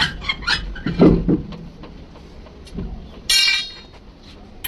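Metal knocks and clanks from work on truck parts, with a heavy thud about a second in and one loud ringing metal strike a little after three seconds.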